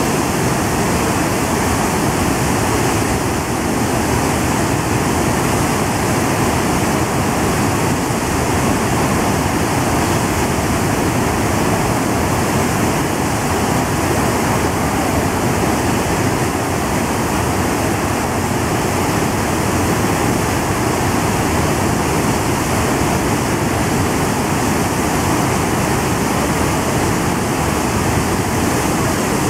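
Loud, steady rush of white water pouring through the Imatrankoski rapids channel, fed by a release through the hydroelectric dam's spillway gates.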